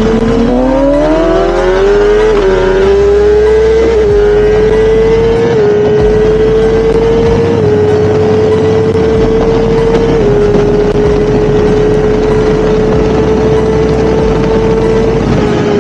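Ducati V4R race bike's V4 engine pulling hard, its pitch climbing quickly for about two seconds, then holding a steady high-revving note with small dips in pitch, easing off slightly near the end.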